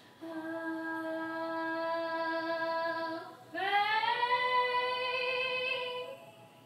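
A female voice singing unaccompanied: one long note held steady for about three seconds, then, after a brief breath, a higher note that scoops up into pitch and is held until near the end.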